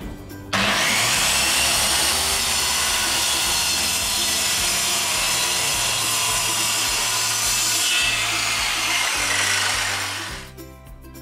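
Handheld circular saw ripping through a plywood panel: a loud, steady cutting noise that starts abruptly about half a second in and tails off near the end.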